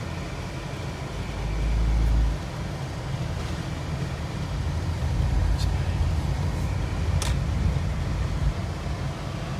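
Low engine and tyre rumble of a car driving, heard from inside the cabin. It swells louder for a moment about two seconds in, and two brief sharp clicks come later.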